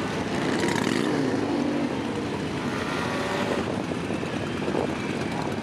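Many motorcycle engines running at once in a large gathering of bikes, blending into a steady mixed drone.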